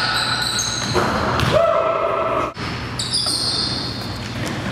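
Basketball game in a gym: a ball bouncing and sneakers squeaking on the hardwood court, echoing in the large hall, with a steady squeal lasting about a second near the middle.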